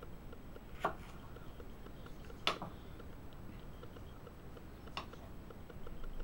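Condor Nessmuk knife cutting a small yellow sweet pepper, its blade knocking on the wooden cutting board three times: a knock about a second in, the loudest about two and a half seconds in, and a faint one near five seconds.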